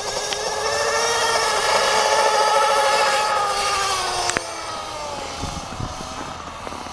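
Small two-stroke nitro engine of an RC snowmobile running at high revs. It grows louder and its pitch rises as the sled approaches, then the pitch drops and the sound fades as it moves away. There is one sharp click about four seconds in.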